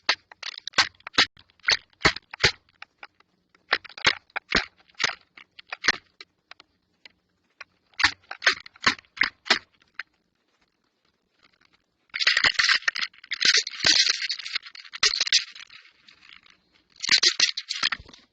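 A bird pecking and scrabbling at a security camera's housing, picked up by the camera's own microphone: runs of sharp taps, several to a run, then longer spells of loud scratchy scraping and rustling in the second half.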